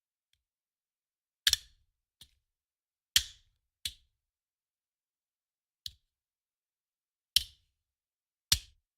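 Handgun magazine thrown down onto a hard surface, landing with sharp clacks: four loud separate landings, some followed a fraction of a second later by a lighter bounce, plus one lone lighter hit in the middle.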